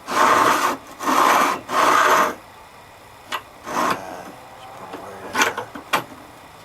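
A wooden clamp bar sliding in and out of its slot in a workbench, wood rubbing on wood in three strokes over the first two seconds, followed by a few light clicks and knocks.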